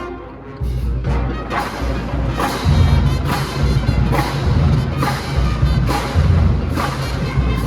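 Marching band with instructors playing a parade tune, with heavy drum beats a little under a second apart. The band drops out briefly at the start and comes back in about half a second in.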